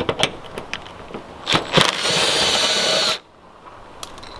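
Milwaukee cordless power driver with a socket spinning a 10 mm fender bolt, running steadily for about a second and stopping suddenly. Before it come a few sharp clicks and clatter of metal and plastic parts.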